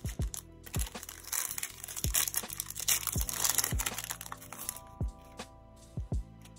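Foil Yu-Gi-Oh! booster pack crinkling and tearing open, loudest from about a second in until about four seconds in, over background music with a steady beat.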